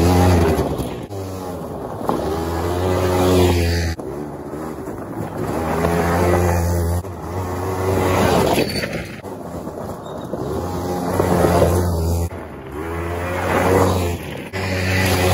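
Four-wheel ATV engine revving and easing off as the quad drives past on a gravel forest track, heard in several short spliced clips with abrupt cuts between them.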